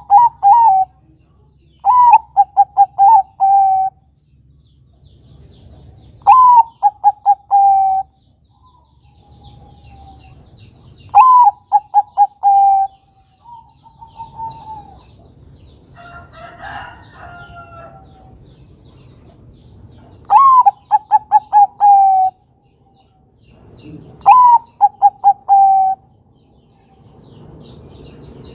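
Zebra dove (Bangkok-type perkutut) singing its cooing song: each phrase is a rising first note followed by a quick run of short coos. The phrase repeats every two to five seconds, six times. Small birds chirp faintly between the phrases.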